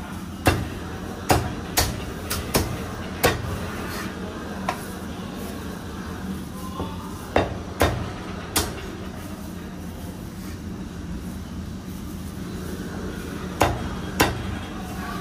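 Cleaver chopping poached white cut chicken on a thick round wooden chopping block: a series of sharp chops, most in the first few seconds, three more around seven to nine seconds in and two near the end, over a steady low hum.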